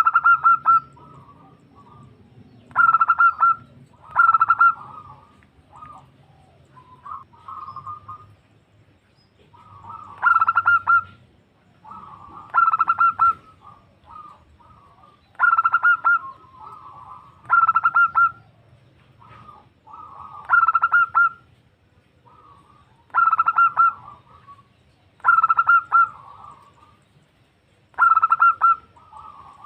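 Female zebra dove (perkutut) calling for a male: short bursts of rapid notes, repeated about every two to three seconds, with softer notes in between.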